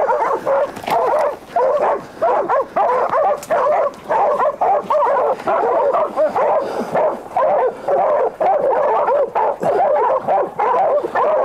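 A pack of hog-hunting dogs barking and baying without pause, their calls overlapping: they have a boar hog stopped at bay in the brush.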